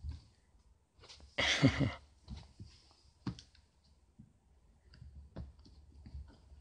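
A kitten's scattered clicks and rustles as it plays with a jump rope with plastic handles and a tennis ball on a fabric sofa. One louder burst of noise lasts about half a second, a second and a half in.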